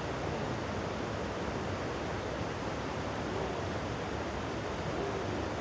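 Steady rushing of river water and rain, an even hiss without a break.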